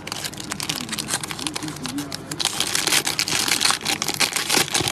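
Foil trading-card pack crinkling in the hands as it is turned over and torn open.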